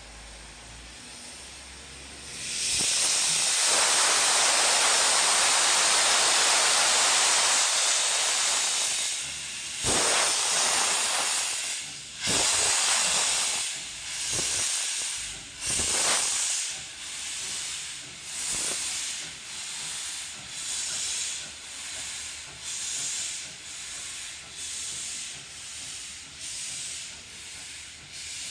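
Victorian Railways K class 2-8-0 steam locomotive starting away. A long, loud hiss of steam comes first, then separate exhaust chuffs, at first irregular and then coming steadily at about one a second as it gets under way.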